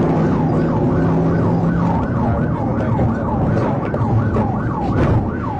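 Emergency vehicle siren in a fast yelp, its pitch sweeping up and down about two to three times a second, over a low rumble of engine and road noise.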